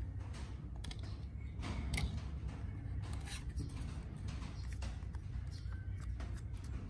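Hands working paper and craft materials: irregular rustles, scrapes and light taps, over a steady low hum.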